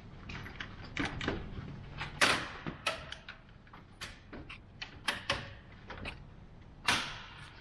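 Plastic clicks, snaps and knocks from a 2020 Ford F450's front grille as it is worked loose from its plastic retaining clips. The clicks come irregularly, the sharpest about two seconds in and near the end.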